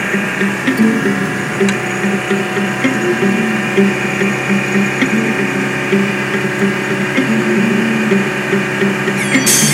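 Vehicle driving, heard inside the cab: a steady engine and road hum with pitched tones that shift up and down, and a cluster of sharp clicks near the end.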